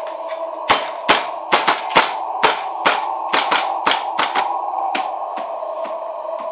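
Eerie droning sound effect: a steady hum with several pitches, overlaid about a second in by a dozen sharp, irregular clicks and knocks. The clicks fade to fainter ticks near the end.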